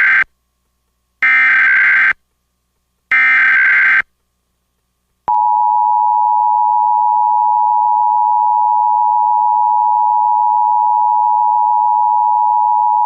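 Emergency Alert System broadcast tones: the end of one burst and then two more bursts of SAME header data tones, encoding a Child Abduction Emergency, followed about five seconds in by the EAS two-tone attention signal (853 and 960 Hz together), held steady for about eight seconds.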